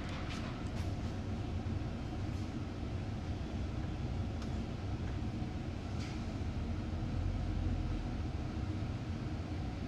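Volvo B9TL double-decker bus's diesel engine running as the bus moves slowly, heard from inside the cabin as a steady low rumble that swells slightly near the end.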